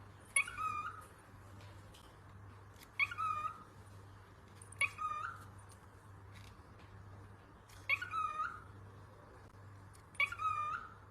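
Cockatiel giving short chirping calls, five in all, each under a second and two to three seconds apart, over a faint low steady hum.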